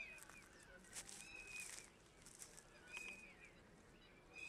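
Faint bird calls: one short, high note repeated about every second and a half.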